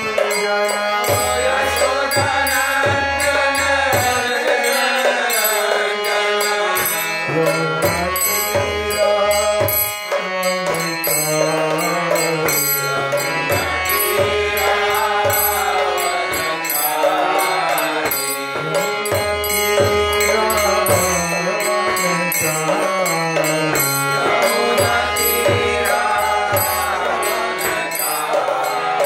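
Devotional chanting of a mantra, a man's voice singing with a harmonium playing along, in long sustained phrases.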